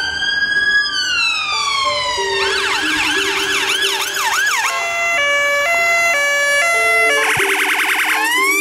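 Electronic emergency siren on a covert ambulance response car, cycling through its tones. It falls in a slow wail, then switches to a fast yelp at about four sweeps a second. That gives way to a two-tone hi-lo for a couple of seconds, a very rapid warble, and a wail rising again near the end.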